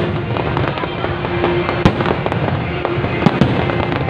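Aerial fireworks bursting: continuous crackling and popping, with sharp bangs of shells going off, the loudest about two seconds in and another after three seconds.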